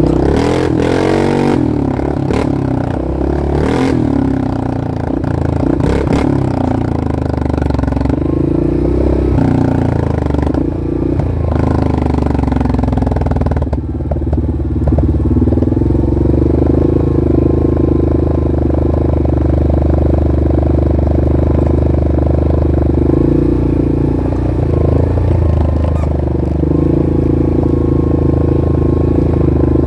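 Engine of an off-road vehicle running under way, rising and falling in pitch through the first dozen seconds with knocks and rattles, then holding a steady drone.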